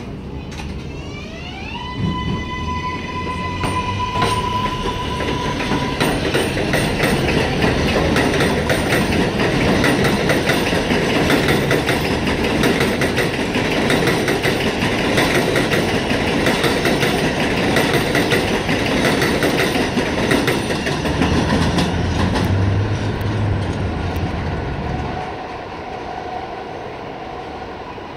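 Kawasaki R188 subway train pulling out on an elevated track. Its propulsion gives a whine that rises in pitch and levels into a steady tone about two seconds in. The cars then rumble and clatter past over the rails, and the sound drops off a few seconds before the end.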